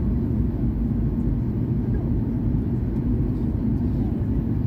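Steady low roar of jet engines and rushing air heard from inside the cabin of a Ryanair Boeing 737 airliner in flight.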